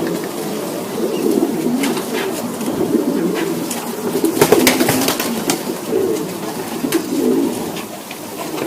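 Racing pigeons cooing together in a loft, a continuous low burbling, broken by a few sharp clicks.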